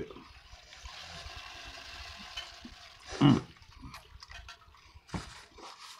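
Biting into and chewing a crispy fried egg roll: wet mouth sounds and small crunches, loudest about three seconds in, over a steady faint hiss.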